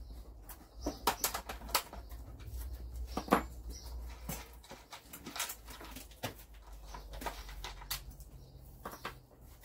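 Irregular clicks, clinks and knocks of hands handling and fitting parts onto a Stihl MS 170 chainsaw while it is being assembled, with the guide bar and chain going on. The loudest knock comes about three seconds in.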